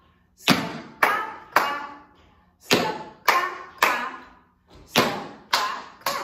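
Tap shoes striking a hard studio floor in a steady step pattern: three sharp taps about half a second apart, a short pause, then three more, three times over. Each tap rings briefly.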